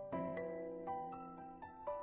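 Gentle background music: a melody of single ringing notes, two or three a second, each struck and fading away.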